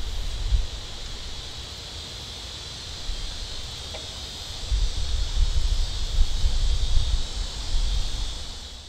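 Steady high insect chorus, with wind buffeting the microphone in low rumbling gusts at the start and again from about five seconds in; the sound fades out at the very end.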